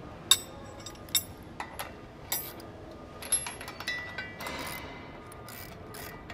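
Irregular sharp metallic clinks and knocks of hand tools and hardware against a steel conveyor drop bracket as it is fitted and fastened, the loudest about a third of a second in.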